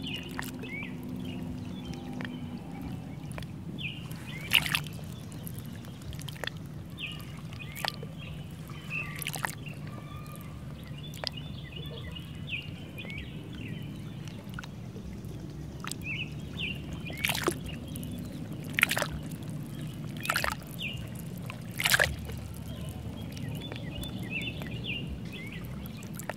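Nature ambience: small birds chirping over a steady low rush of water, with a few sharp splashes and drips scattered through.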